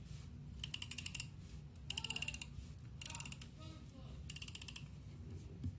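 Correction-tape dispenser drawn across paper in four short strokes, each a fast run of ticking clicks from its winding gears. Faint voices are behind it.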